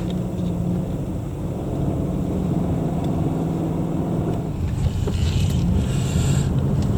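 Car running on the road: a steady low engine and road drone with slight shifts in pitch.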